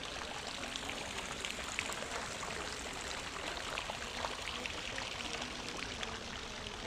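Steady splashing, running water with a constant rush and many small droplet ticks.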